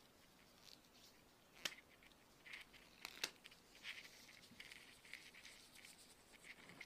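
Latex gloves being pulled on and worked over the fingers: faint rubbing and squeaking of rubber against skin, with two sharp snaps of the glove, one under two seconds in and another about a second and a half later.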